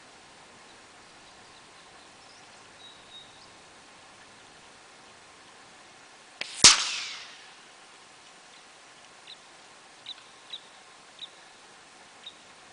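A single shot from a Weihrauch HW100 .22 pre-charged pneumatic air rifle: one sharp crack about six and a half seconds in, tailing off over about a second. A few faint, short, high chirps follow near the end.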